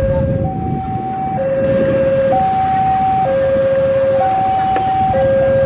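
Railway level-crossing warning alarm sounding its two-tone signal, a higher and a lower tone taking turns about once a second, warning that a train is approaching. A low rumble runs underneath.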